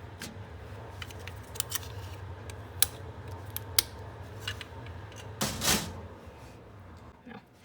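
Small plastic latch parts, a spring and Scotch tape being handled: scattered light clicks and taps, and a short scratchy rasp about five and a half seconds in.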